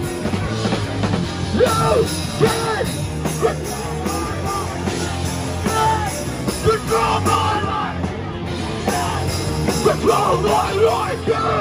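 Hardcore punk band playing live, loud and steady, with shouted vocals over the band.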